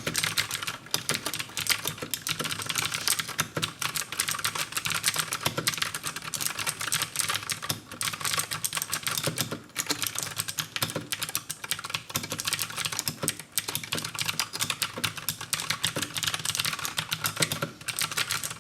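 Fast, continuous typing on a Keychron K6 mechanical keyboard with Gateron Blue clicky switches: a dense stream of sharp key clicks with only brief pauses.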